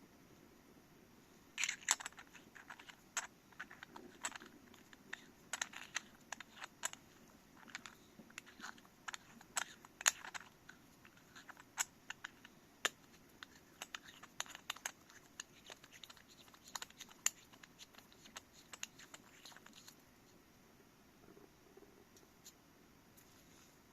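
Irregular clicks, taps and light rustling from a camera lens and its packaging being handled. The clicks thin out and stop about four seconds before the end.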